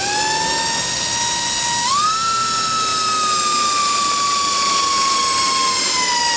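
Milwaukee 2602-20 M18 cordless hammer drill's motor whining as it drives a small screw in screwdriver mode on its lowest clutch setting. The pitch steps up about two seconds in, then slowly falls as the screw goes in under load, with the clutch not yet slipping.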